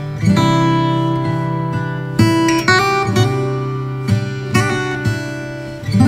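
Acoustic guitar music: strummed chords that ring on between strums, a new strum every half second to a second or so.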